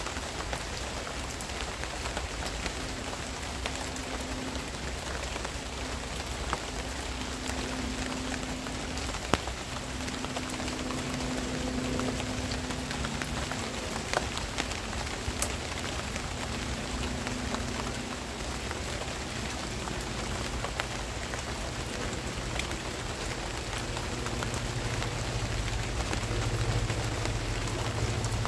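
Steady rain falling on garden plants, with scattered sharper drop hits.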